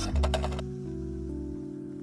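Background music with held low notes, and a few light clicks in the first half second.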